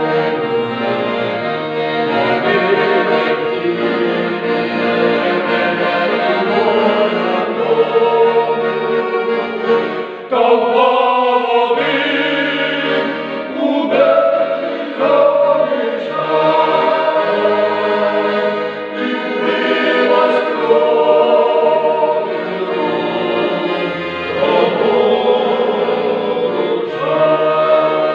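A folk vocal ensemble singing a song together to accordion accompaniment, with a short break in the sound about ten seconds in.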